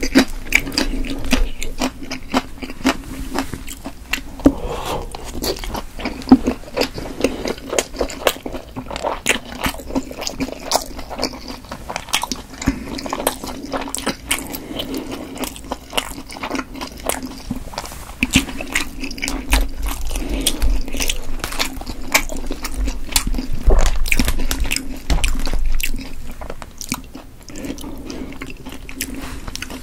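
Close-miked wet chewing and lip smacking of chewy steamed potato dumplings, with dense sharp mouth clicks throughout and occasional chopstick taps on the steel steamer basket.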